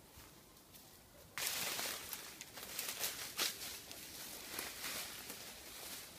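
Footsteps crunching and rustling through deep dry leaf litter, with irregular crackles. They start suddenly and loudly about a second and a half in, after a faint, quieter stretch.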